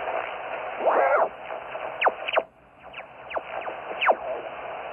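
Shortwave ham radio receiver tuning across a band: steady static hiss crossed by a series of quick sliding whistles as the tuning dial sweeps past signals, with a garbled snatch of voice about a second in and a brief dip in the noise partway through.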